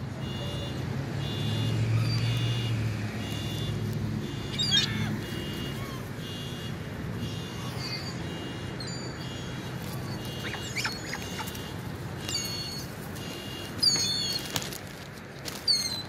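Gulls calling with short, sharp cries every few seconds over a steady, repeating high beeping in the background. A low vehicle hum fades out after the first few seconds.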